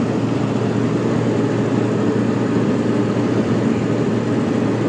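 Steady engine drone with road and wind noise heard from inside the cab of a moving vehicle at highway speed.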